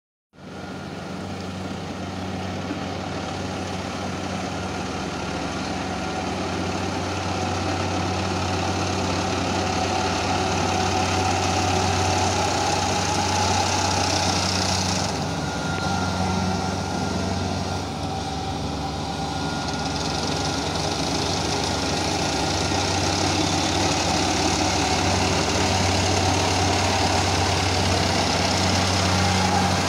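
Kubota PRO588 combine harvester's diesel engine running steadily under a continuous mechanical clatter, cutting in abruptly at the start and dipping slightly in level about halfway through.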